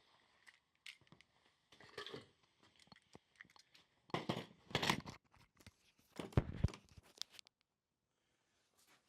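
Irregular rustling, crunching and clicking handling noises, with louder bursts about two, four and six seconds in and a dull knock among the last, then stopping shortly before the end.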